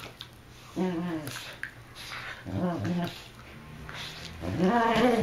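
A dog vocalizing during play: three drawn-out, wavering whine-like grumbles, each under a second long, the last the loudest.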